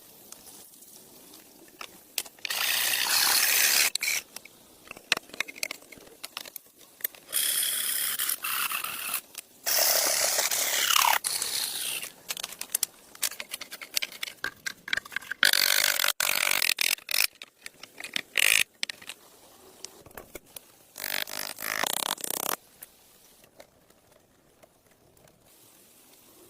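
Repeated bursts of scraping, each lasting a second or two, with scattered sharp clicks and knocks in between.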